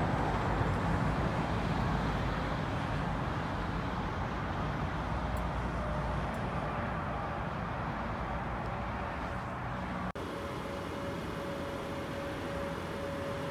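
Jet engine rumble of a landing Boeing 737 MAX 8, a broad noise that slowly fades over about ten seconds. After a sudden cut, a steadier, quieter jet rumble with a faint steady whine from another airliner coming in on approach.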